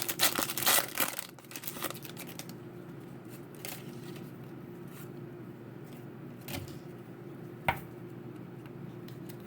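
Foil trading-card pack being torn open and crinkled, busiest in the first two seconds or so. After that come a few light clicks as the cards are handled, over a steady low hum.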